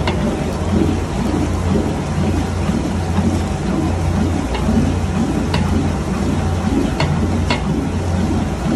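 Sliced onions deep-frying in hot oil in a large aluminium pot, stirred with a metal ladle: a loud, steady sizzling crackle over a low steady hum, with a few sharp clicks in the second half as the ladle knocks the pot.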